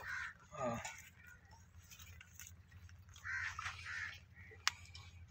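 Two short harsh animal or bird calls about half a second apart, a little after three seconds in, over a low steady hum. A single sharp click comes near the end.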